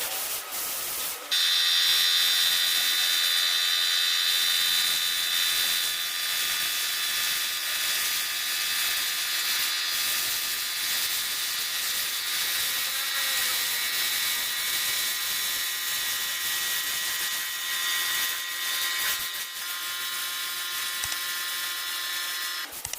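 Electric paint spray gun running steadily, spraying varnish: a steady motor whine over a hiss, starting abruptly about a second in and cutting off just before the end.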